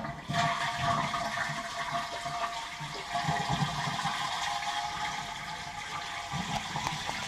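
Toilet flushing with its water supply shut off: the flush starts suddenly and water rushes steadily down as the tank empties, without refilling.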